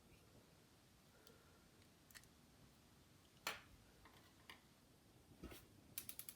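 Near silence with a few faint, sharp clicks about a second apart and a quick run of clicks near the end: small precision tools tapping and clicking against the tiny parts of an opened iPod Nano.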